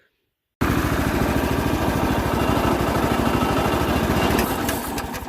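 Sawmill's Subaru single-cylinder small engine running with a fast, even firing pulse, cutting in suddenly about half a second in and dropping in level near the end.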